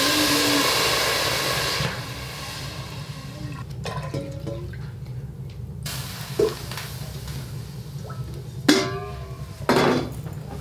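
Water poured from a metal kettle into a metal cooking pot: a loud, splashing stream for the first two seconds, then much fainter.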